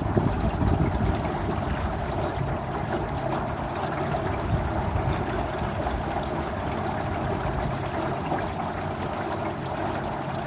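Water running and trickling along the hull of a small flat-bottomed boat under way on a river, a steady noise.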